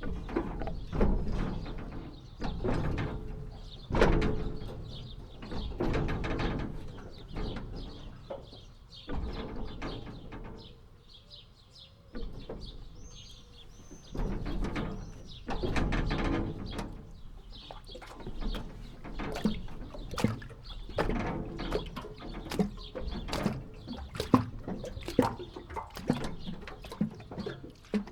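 A jetty creaking and squeaking in repeated swells every couple of seconds as it moves on the water, with water splashing and gurgling around it. The second half has many short clicks and knocks.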